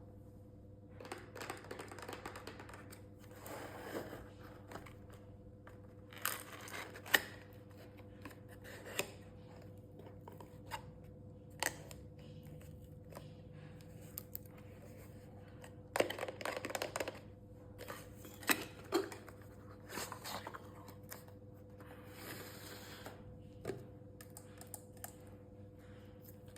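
Packaging being opened by hand: bursts of rustling, crinkling and tearing with scattered sharp clicks and taps, over a faint steady hum.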